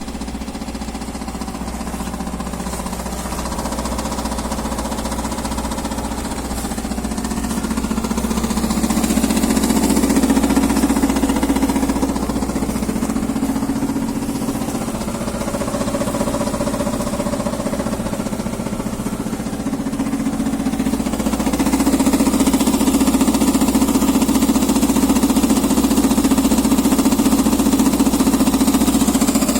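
Subaru engine running with a rapid, continuous knocking rattle from its belt tensioner pulley, a sign that the tensioner pulley is worn. The sound grows louder about a third of the way in and again past two-thirds.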